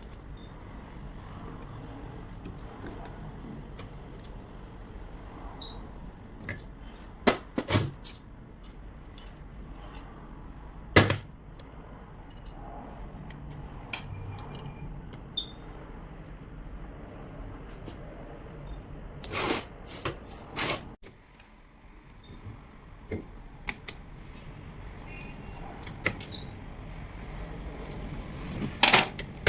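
Scattered sharp knocks and clicks of parts and tools being handled during starter motor repair, a few at a time with pauses between, over a steady low hum.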